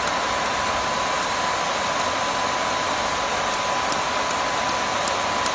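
Mini jewelry laser welding machine running with a steady fan-like hiss and a faint steady whine. From a little past halfway, faint sharp ticks come about two or three times a second as the laser pulses weld the aluminium sheet.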